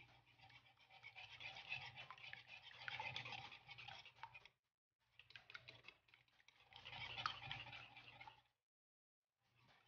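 Wire whisk beating two eggs in a wooden bowl: a faint, rapid scratchy clicking of the wires against the bowl, cutting out twice briefly.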